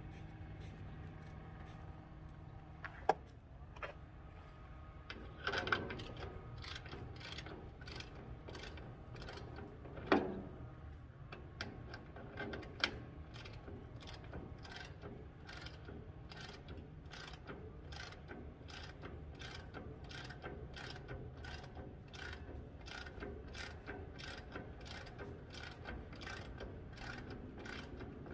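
Hand ratchet wrench working a bolt, clicking about twice a second in a steady run through the second half, with a few sharp metal knocks and clanks before it, the loudest about ten seconds in.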